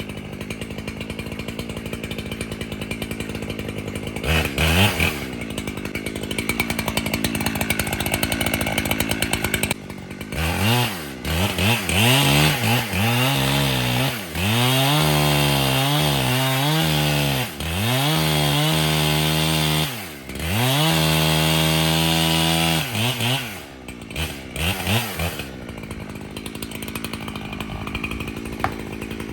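Two-stroke chainsaw idling, then revved repeatedly from about ten seconds in and held at full throttle for several stretches of a few seconds each as it cuts into the trunk of a heavy leaning tree, dropping back to idle near the end.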